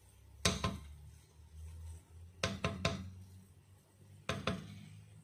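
Wooden spoon knocking against the side of a granite-coated pot while stirring rice: two knocks about half a second in, three in quick succession in the middle, and two more near the end, over a low steady hum.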